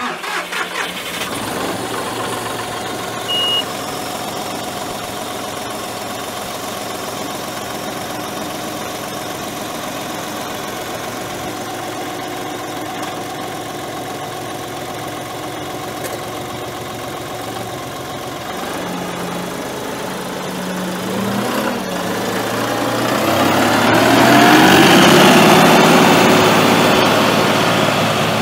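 The three-cylinder turbo diesel of a 2016 John Deere 5045E tractor starts and settles into a steady idle, with a short beep about three seconds in. About twenty seconds in the throttle is raised, and the engine revs up to a louder, faster speed.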